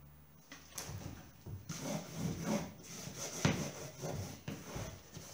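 A cloth soaked in alcohol rubbed hard back and forth over a wooden picture frame, making repeated rough scrubbing strokes that begin about a second in. The rubbing strips the frame's waxy surface so that paint will grip.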